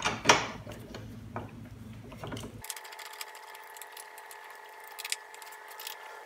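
A few clicks and knocks of tools being handled, then about two and a half seconds in a small electric power tool's motor starts and runs at a steady whir with a light rapid ticking, typical of screws being driven.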